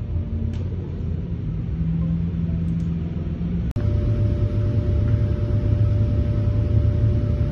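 Pro Stock drag-racing V8 on an engine dyno, idling between pulls with a steady low rumble. There is a brief dropout about halfway through, after which the rumble carries on with a faint steady tone above it.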